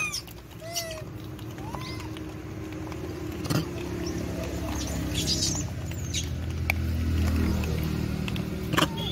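Rhesus macaques giving a few short rising-and-falling coo calls and high squeaks, with scattered clicks and scuffs as they move over stony ground. Under them runs a steady low hum that swells about seven seconds in.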